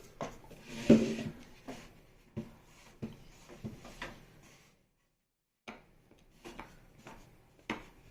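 Wooden beehive frames knocking and rubbing against each other and the wooden hive box as they are handled and shifted, a string of light knocks, the loudest about a second in. About a second of dead silence falls just before the middle.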